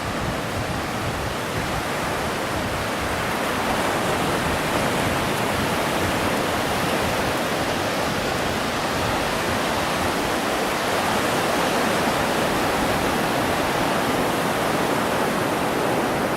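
Steady rushing roar of ocean surf on the beach, growing slightly louder about four seconds in.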